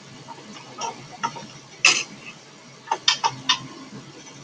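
Irregular small clicks and taps from hands working a domestic sewing machine as the bobbin thread is drawn up, the loudest just under two seconds in and a quick run of three or four clicks about three seconds in.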